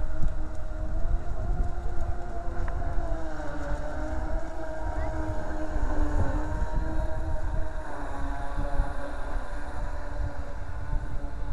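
Twin 380 electric motors of a radio-controlled model speedboat running with a steady whine, its pitch dipping and rising a little as the boat turns. A low rumble of wind on the microphone runs underneath.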